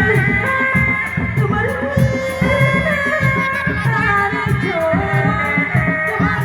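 Live jaranan accompaniment music: a quick, steady drum beat under a singer's gliding melody and held instrument tones.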